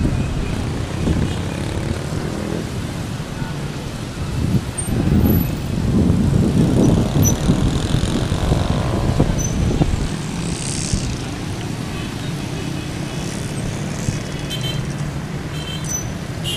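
Heavy street traffic heard from above: many motorcycle engines and cars running together in a continuous rumble, with voices mixed in.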